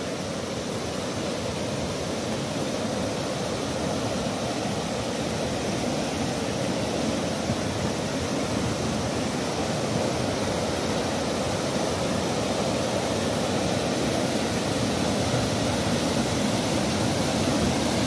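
River rapids rushing over low rock ledges of a short waterfall: a steady rush of white water, growing a little louder toward the end.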